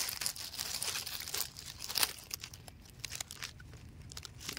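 Dry leaf litter and twigs rustling and crackling in irregular bursts, with handling knocks as the phone is set down among them; loudest right at the start and about two seconds in.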